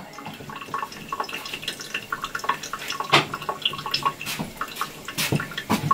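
Water dripping in a bathroom sink just after a pan has been rinsed, irregular small drips with a few sharper knocks.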